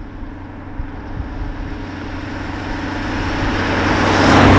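Audi A6 3.0 TDI quattro diesel approaching and driving up close, with its active sound system in dynamic mode giving a V8-like engine note. The steady low hum and road rush grow louder to a peak near the end as the car arrives.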